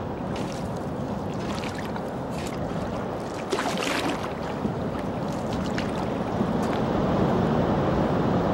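Dugout canoe being paddled across a river: paddle strokes splashing at irregular intervals over a steady rush of water and wind, the loudest splash about three and a half seconds in.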